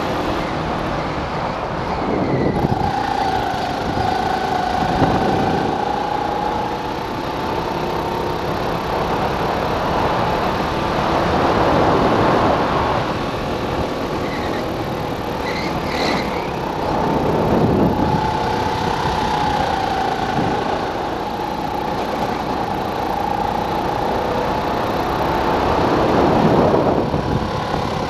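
Go-kart engine running flat out on track, its pitch climbing slowly along the straights, with surges of wind rush on the onboard microphone.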